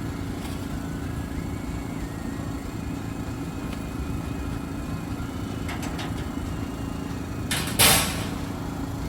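Steady road and engine noise inside a moving car, a low rumble with a hum. About three-quarters of the way through comes one short, loud noise.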